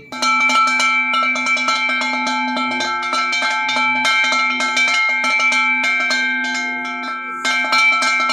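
Large brass cowbell with a wooden clapper shaken by hand, clanking rapidly with a steady ringing tone under the strikes, and shaken harder again near the end.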